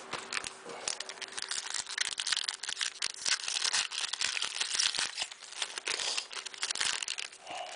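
Trading card pack wrapper being torn open and crinkled, with a dense run of irregular crackles.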